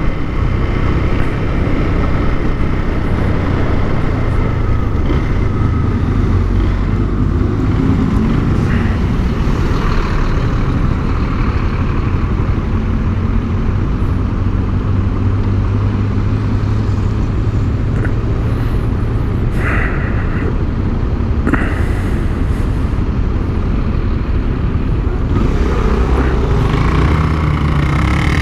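Motorcycle engine running while riding through city traffic, steady for most of the time, with the engine pitch rising near the end as it accelerates.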